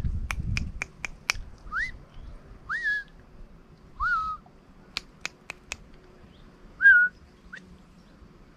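Short whistled notes, each sliding up and dropping back, five of them at uneven gaps, with two quick runs of four or five sharp clicks, one near the start and one about five seconds in.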